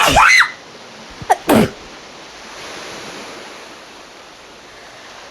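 A woman sneezing twice: one loud sneeze right at the start and a second about a second and a half in, with a short sharp catch of breath just before it. Each sneeze falls in pitch. A steady even hiss of background noise follows.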